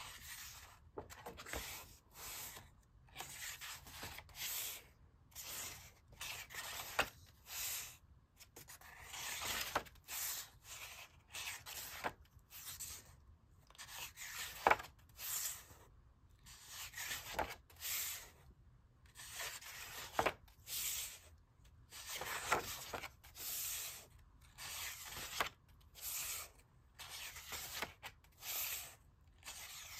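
Paint-coated paper pages of a hand-bound art journal being turned and smoothed flat by hand: short dry rustles and rubs every second or so, with an occasional sharp click of stiff paper.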